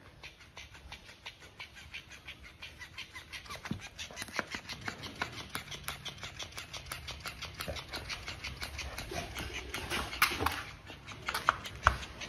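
Electric flopping fish toy's motor-driven tail slapping on a wooden floor: a rapid, even tapping, with a few louder knocks near the end as it is nudged about.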